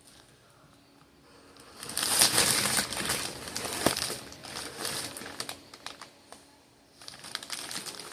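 Plastic packaging crinkling and rustling as it is handled, in irregular bursts. It starts about two seconds in, drops to a lull near the end, then picks up again.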